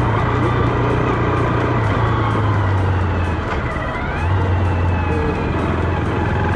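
Zontes X310's single-cylinder engine running at a steady cruise, with wind rushing over the rider-mounted microphone. The revs ease off about three and a half seconds in and climb again about half a second later.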